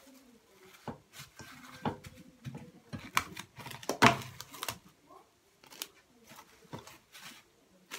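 Plastic cling film being pulled off its roll and stretched and pressed over a metal bowl: irregular crinkling and crackling, with one louder crackle about four seconds in.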